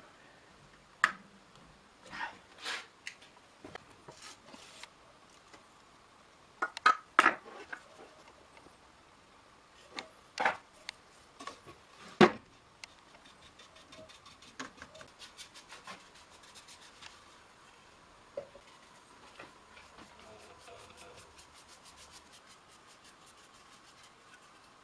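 Wooden pieces being handled on a workbench: sharp knocks and rubbing of wood against wood. The loudest come about a second in, around seven seconds and around twelve seconds in. From about thirteen seconds on there is a faint, fast ticking.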